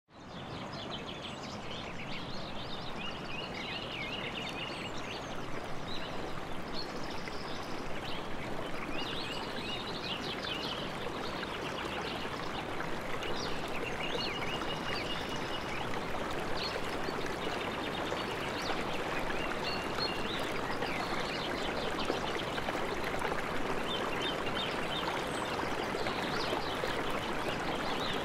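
A flowing stream rushing steadily, with songbirds chirping and trilling over it. The sound fades in at the start.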